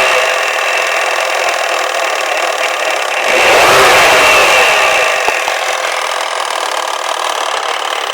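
Volvo 480's B18E engine blipped once about three seconds in and dropping back to idle, with a fast rattle like a toy machine gun that carries on at idle after the throttle is released.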